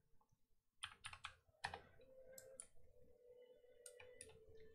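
Faint typing on a computer keyboard: a dozen or so light keystrokes in short runs with pauses between, over a faint steady hum.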